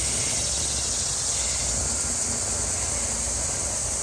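Steady, even outdoor hiss, strongest in the high register, with no distinct events.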